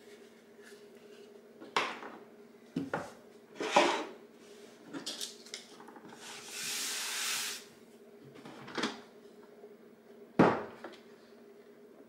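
Plastic parts being handled and set down on a wooden tabletop: a scattering of clicks and knocks, a few seconds of paper rustling about halfway through, and a loud knock near the end as the robot vacuum is turned over onto the table. A faint steady hum sits underneath.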